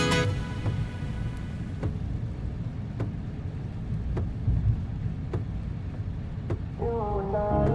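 Car running on the road, heard from the cabin as a steady low rumble, with a faint click about once a second.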